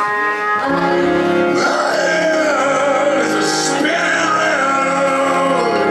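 Recorded music with a singing voice over sustained chords, played through the theatre's sound system as a scene-change cue.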